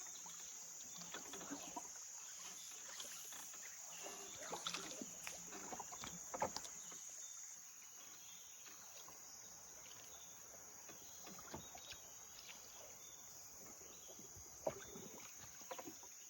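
A steady high-pitched drone of jungle insects, easing slightly about halfway through, with scattered soft knocks and clicks, the loudest near the end.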